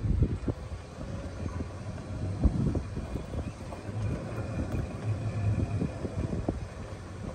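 Golf cart riding along: a steady low rumble with irregular rattles and knocks, the sharpest about two and a half seconds in, and wind on the microphone.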